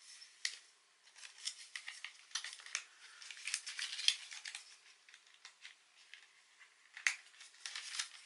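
Hands handling the plastic frame of a TYRC Sky Overlord folding drone: an irregular run of small clicks, taps and scrapes of plastic on plastic and on the table, busiest in the middle, with a sharper click about seven seconds in.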